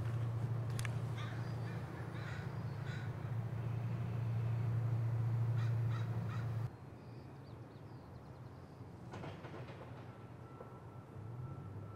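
Crows cawing several times over a steady low rumble of outdoor ambience; the rumble cuts off abruptly about two-thirds of the way through, leaving quieter background with a few more calls and a faint steady tone near the end.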